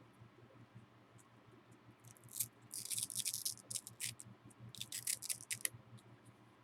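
Plastic packaging crinkling as it is handled, in three short bursts of crackling: about two seconds in, around three seconds in, and again around five seconds in.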